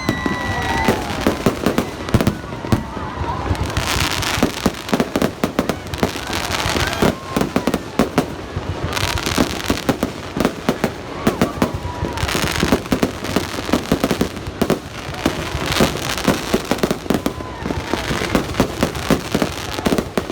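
Aerial fireworks going off in rapid succession: many sharp bangs, with several spells of crackling hiss a few seconds apart.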